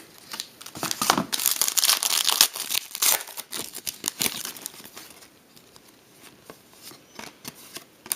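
Wrapper of a trading-card pack being torn open and crinkled, loudest in the first three seconds, followed by quieter scattered rustling and clicks as the cards are handled.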